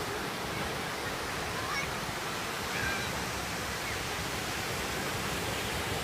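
Steady rushing noise of ocean surf at the beach, with wind on the microphone.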